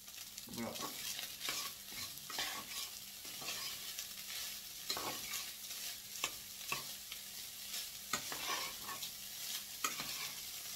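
Rice sizzling in hot oil in a stainless steel frying pan, stirred with a metal spatula that scrapes and taps the pan at an irregular pace over a steady high hiss.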